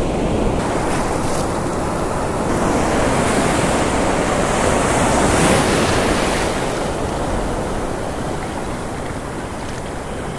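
Breaking surf washing in over the shallows, a steady rush of water that swells about halfway through and then eases off.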